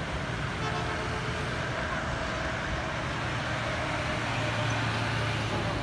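Street traffic: motorbikes, cars and trucks passing on the road, a steady hum of engines and tyres. A lower engine drone swells near the end.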